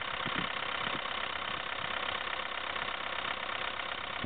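2006 VW Jetta TDI's four-cylinder diesel engine running steadily with an even clatter, heard at the engine bay.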